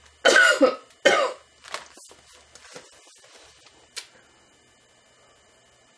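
A woman coughing twice in quick succession, hoarse from a sore throat. A few faint small knocks and a sharp click follow.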